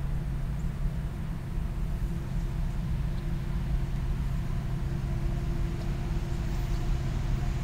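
Steady low engine rumble, holding level throughout.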